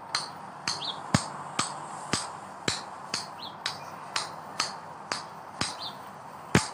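Golf ball bounced repeatedly on the face of a golf club: a sharp tap about twice a second, evenly spaced. Birds chirp faintly in the background.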